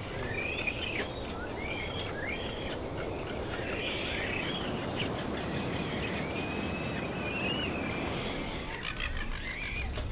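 Seabirds calling in quick succession with short squawks and gliding, rising-and-falling calls, over a steady background rush.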